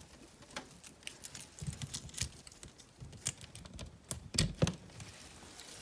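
Christmas tree branches rustling, with scattered small clicks and taps from hands working among the needles and the wire of the string lights. A couple of louder knocks come about four and a half seconds in.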